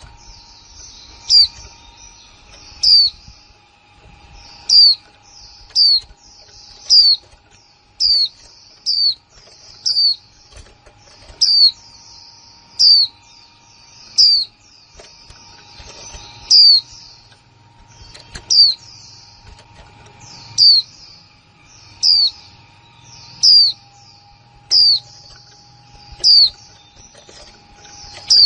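Female white-eye (khuyên mái) giving her 'kick' call over and over: a sharp high note that drops quickly in pitch, repeated about every one to two seconds, with softer twittering between the calls.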